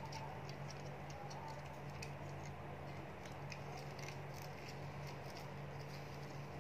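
Small, irregular plastic clicks and ticks as the joints and parts of a Weijiang Devastator transforming robot toy are twisted and folded by hand.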